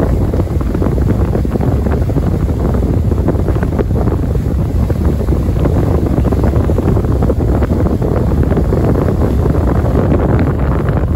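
Wind buffeting the microphone aboard a moving ferry, a steady low rumble over the drone of the ship running underway.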